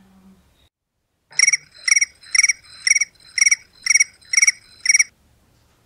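Cricket-chirp sound effect: eight short, high chirps, each a quick trill, about two a second, stopping about five seconds in. It is the stock cue for an awkward silence.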